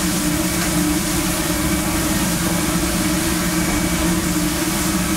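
Onions, peppers and mushrooms sizzling on a hot gas griddle, over a steady low hum of the commercial kitchen's equipment.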